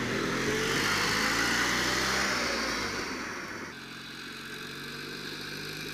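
Homemade tractor's two-cylinder VAZ Oka car engine running steadily as the tractor drives off; the sound turns suddenly quieter a little before four seconds in.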